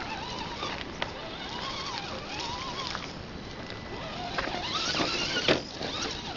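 Axial SCX10 radio-controlled crawler's brushed electric motor and drivetrain whining as it climbs a dirt and rock slope, the pitch rising and falling with the throttle. Scattered clicks and a sharp knock about five and a half seconds in.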